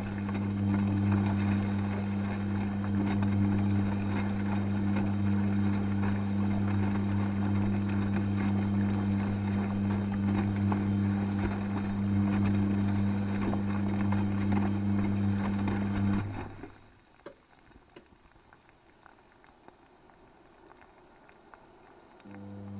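Beko WTG front-loading washing machine tumbling a full load in the heating phase of its Daily 90°C programme, heard from inside the detergent drawer: the drum motor hums steadily under the sloshing of water and wet laundry. About 16 seconds in, the motor stops and the drum rests, with only faint small sounds and a sharp click. The motor starts again just before the end.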